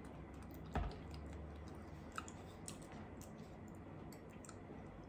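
Quiet mealtime sounds: a soft knock on the table about a second in, then faint scattered clicks of a fork against a plate.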